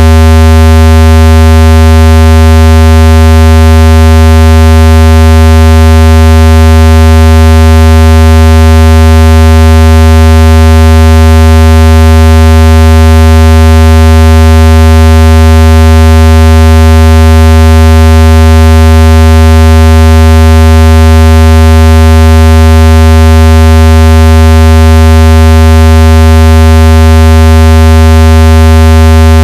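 Speaker-cleaning tone: a steady, very loud low buzzing tone with many overtones, unchanging throughout, played through a speaker to shake water and dust loose from it.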